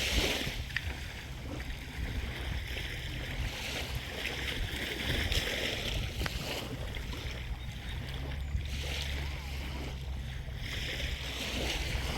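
Small waves washing up on a sandy beach, the hiss of the surf swelling and fading every few seconds, with wind rumbling on the microphone.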